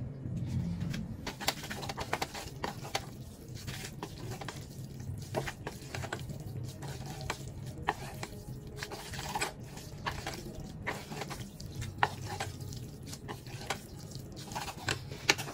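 Chopsticks stirring and tossing saucy instant noodles in a small saucepan: irregular clicks and scrapes against the pot, over a low steady hum.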